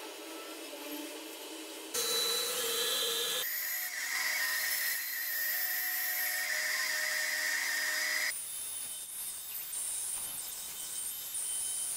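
Band saw running and cutting a small piece of snakewood: a steady whine with a strong high tone that changes abruptly twice, then gives way to quieter rasping of the blade in the wood.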